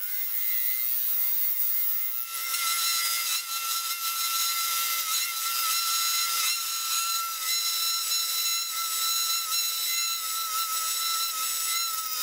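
Mini lathe parting off aluminum round stock: the parting tool cutting a steadily deepening groove, a steady scraping hiss over the steady whine of the running lathe.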